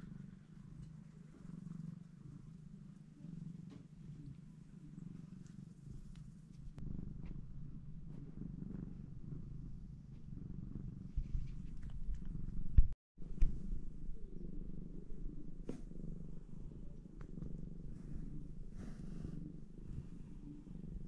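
Domestic mother cat purring steadily and continuously while her newborn kittens nurse. One loud low bump interrupts it about two-thirds of the way through.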